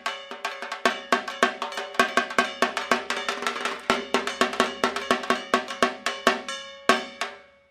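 Dhak drums of Durga Puja beaten with sticks in a fast, loud rhythm of ringing strokes. Near the end a single heavy stroke rings out and fades before the beating starts again.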